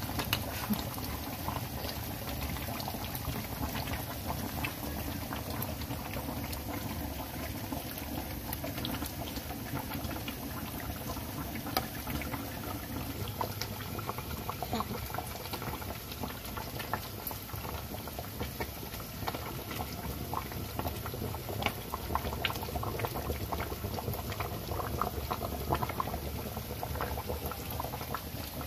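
Tomato-based fish and vegetable stew bubbling steadily in a pot, a continuous crackle of small popping bubbles.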